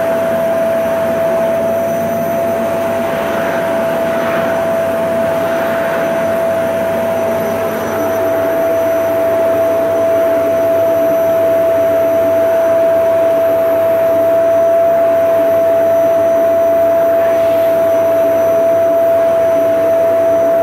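Vacuum cleaner running steadily: a constant high motor whine over a rushing airflow noise, its tone shifting slightly about eight seconds in.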